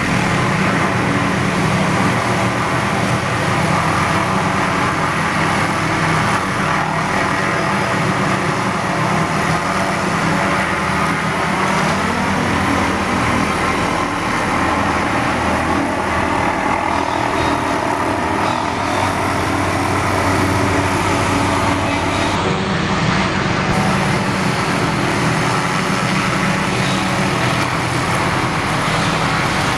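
Hughes 500D helicopter's turboshaft engine and rotors running steadily as it works close by. The drone's pitch wavers slightly in the middle.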